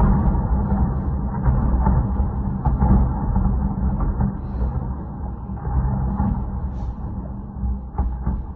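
A heavy engine running with a low, steady rumble, with a few faint clicks and knocks over it.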